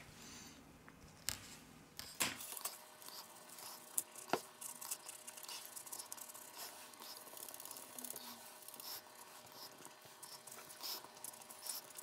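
Faint scraping and small clicks of a thin plastic opening card sliding along the edge of a phone's back cover as it cuts through the adhesive, with a few sharper clicks in the first half.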